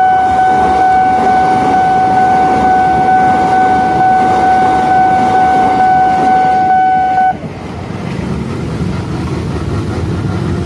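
Railway level-crossing warning alarm sounding one steady high tone over the rumble of a passing electric train. The alarm cuts off about seven seconds in, and idling motorcycle engines and road traffic take over as the crossing reopens.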